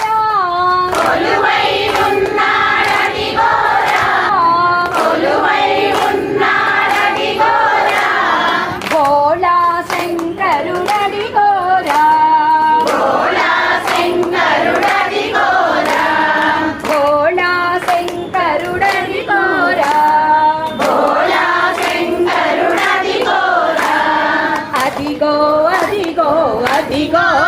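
A group of voices singing a Telugu devotional bhajan to Shiva in unison, with hand clapping keeping the beat.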